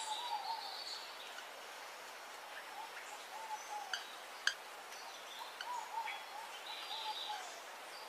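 Two sharp snaps from a Machaeropterus manakin's wings, a little under a second apart about halfway through, over faint, repeated wavering bird calls in the forest background.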